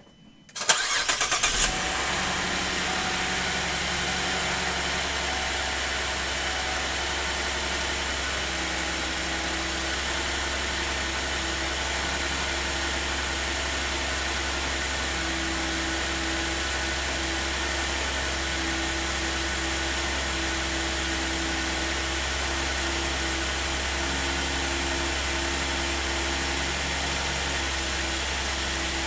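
A 2009 Chevrolet Traverse's 3.6-litre direct-injection V6 cranks and catches on a cold start about half a second in, then settles into a steady idle. This is the engine the owner says misfires intermittently after cold starts.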